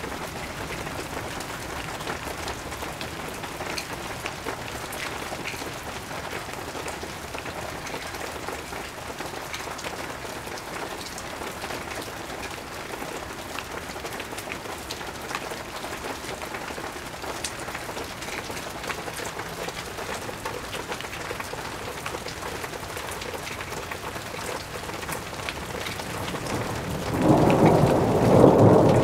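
Steady rain falling, a hiss dotted with individual drops ticking. Near the end, a loud rumble of thunder swells in.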